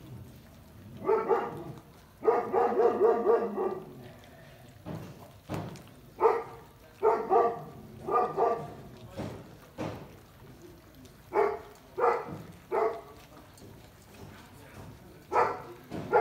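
A litter of three-week-old Doberman puppies squealing and yelping in short, high-pitched cries while they crowd and push at bowls of raw minced pork, with one longer whine about two seconds in.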